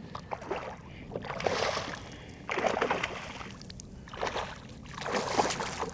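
Hooked redfish thrashing at the surface beside a kayak, in bursts of splashing about a second and a half in, again around two and a half seconds in, and near the end, with quieter water sounds between.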